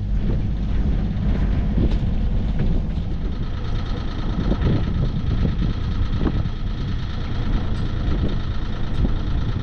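Sailing yacht's inboard engine running steadily under way, a constant low rumble with a thin steady whine joining about a third of the way in.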